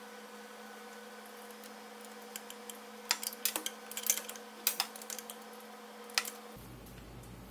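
Light, irregular metallic clicks and taps as a gloved hand works at the horn bracket's mounting hardware, heard as a cluster of quick clicks a few seconds in and a last click near the end. A faint steady hum runs underneath and cuts off abruptly near the end.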